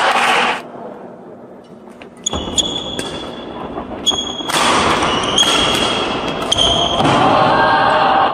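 Badminton rally on a wooden indoor court: a few sharp racket hits on the shuttlecock and short, high squeaks of players' shoes on the floor, over a background of voices.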